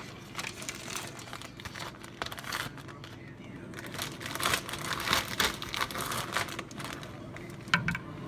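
Thin plastic bag crinkling as it is handled and opened, in irregular rustling bursts that are busiest in the middle. There is a single sharp tap near the end.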